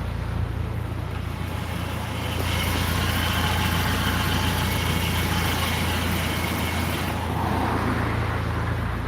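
A BMW's steady engine and road hum heard inside the cabin. From about two seconds in until about seven seconds, a faint high-pitched squeal runs over it: the chassis rubbing as the steering is turned, an abnormal noise the driver cannot yet explain.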